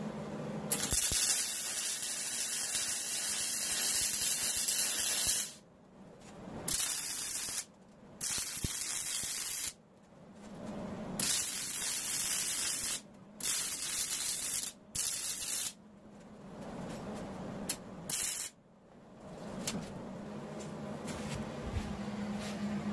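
MIG welder's arc burning as a steel tube is welded to a steel plate, heard as a bright hiss in bursts: one long run of about four and a half seconds, then a string of shorter one- to two-second bursts, each cutting off suddenly.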